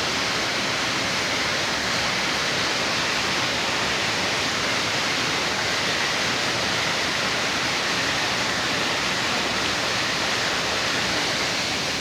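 Waterfall cascading steadily into its pool, a constant loud rushing of water.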